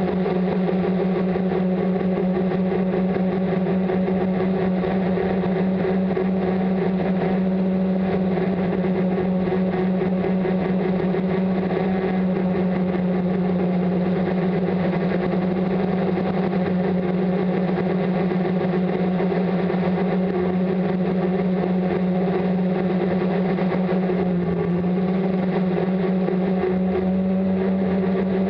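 Brushless motors and propellers of a multirotor in flight, heard through its onboard camera: a steady buzzing hum with a strong low tone. The pitch steps up slightly about 25 seconds in.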